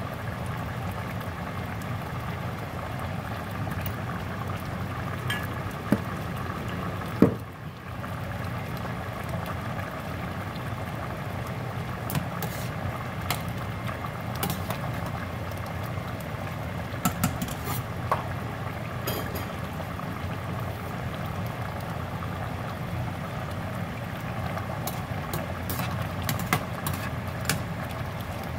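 Stew simmering steadily in a stainless steel pot on the stove. A sharp knock comes about a quarter of the way in, then a slotted metal spoon stirs the stew and clinks lightly against the pot now and then.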